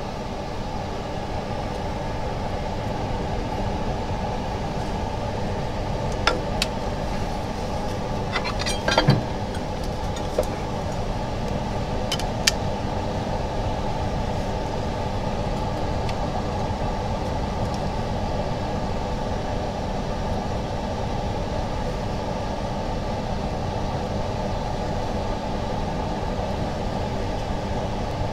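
Steady mechanical hum of workshop machinery. A few sharp clicks and clacks of small metal laminating molds being handled stand out, with a quick cluster about nine seconds in.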